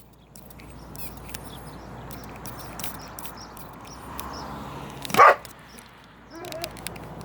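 A dog barks once, loud and short, about five seconds in, reacting to the water spray bottle it hates.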